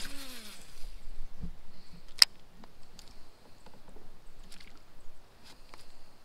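Baitcasting rod and reel in use during a cast: a short whir with a falling pitch at the start, one sharp click about two seconds in, then a few faint clicks as the lure is worked back.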